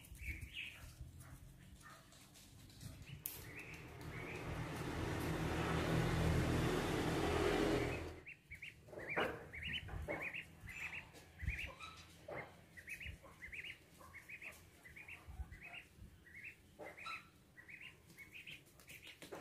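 Duckling peeping: a run of short, high chirps, about two a second. Before it, a rushing noise swells for several seconds and cuts off abruptly.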